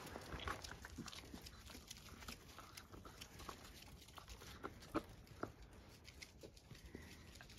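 Labrador puppies moving about on concrete: faint scattered clicks and scuffs of small paws, and a puppy chewing on a leather work boot. The sharpest click comes about five seconds in.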